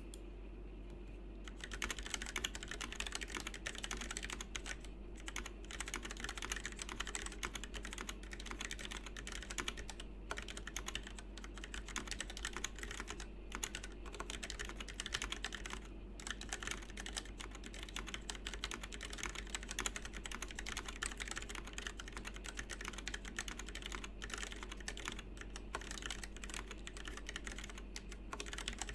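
Typing on a 1stPlayer Uni-Q mechanical keyboard in stock, unlubed form, with Gateron Yellow linear switches in a plastic case with an aluminium plate. A fast, continuous run of keystrokes starts about a second and a half in.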